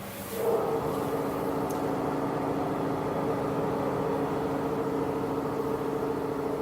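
Cummins diesel generator set running steadily: a constant engine drone with a held mid-pitched whine, which jumps louder about half a second in and then stays even.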